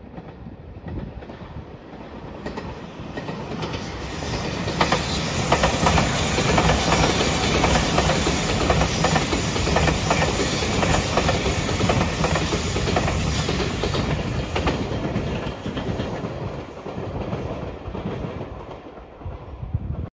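JR Shikoku 8000 series electric limited-express train passing at speed: it builds up over the first few seconds, runs loud for about ten seconds with its wheels clattering over the rail joints, then fades away.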